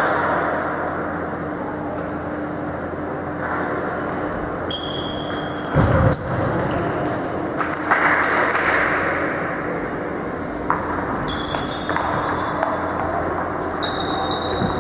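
Table tennis balls bouncing on the table and paddles, each contact a sharp click with a short high ping, scattered at first and coming more often in the last few seconds. A single low thump sounds about six seconds in, over a steady low hum in the hall.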